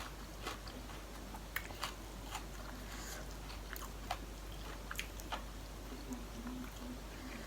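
Close-up eating sounds: chewing and biting on mouthfuls of spicy seafood salad, with scattered short crunches and mouth clicks. A faint low hum comes near the end.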